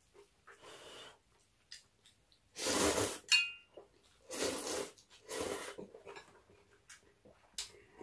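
A person slurping ramen noodles in three long pulls, the first a little over two seconds in. A short clink of chopsticks on the pan comes just after the first slurp.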